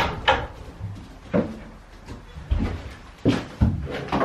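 A goat and a person coming in through a door: half a dozen irregular knocks and thumps, the sounds of hooves, footsteps and the door.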